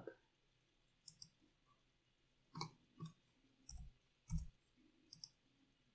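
Faint, scattered clicks of a computer mouse as lines are drawn in CAD software, about seven over a few seconds, a couple with a dull low thump.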